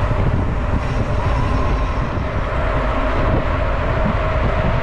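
Steady rumble of wind buffeting the microphone of a camera on a moving bicycle, mixed with tyre and road noise during a group ride on a paved road.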